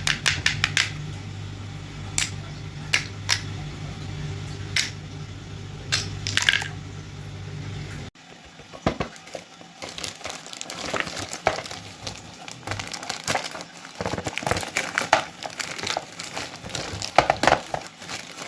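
Packaging being opened and handled: sharp clicks and taps over a steady low hum at first, then, after an abrupt change about eight seconds in, denser crinkling and rustling with more clicks.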